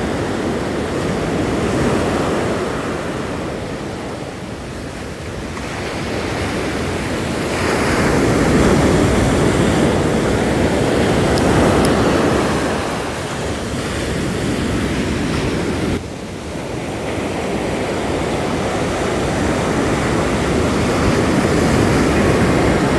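Ocean surf breaking and washing up the sand, swelling louder and easing off with each wave, with some wind on the microphone.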